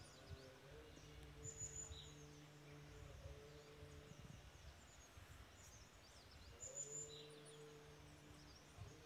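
Faint birdsong: one bird gives the same short high call twice, about five seconds apart, among scattered chirps. Under it is a low droning voice chanting in long notes held on one pitch, which breaks off in the middle and resumes.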